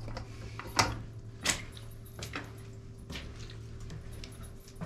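Small clicks and scrapes of hands handling a wire and a metal bracket in a hot tub's underwater light niche, with two sharper clicks about one and one and a half seconds in, over a low steady hum.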